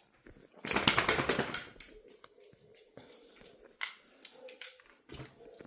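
A dog moving about excitedly, with a burst of clattering and rustling about a second in, then scattered light clicks like claws on a hard floor.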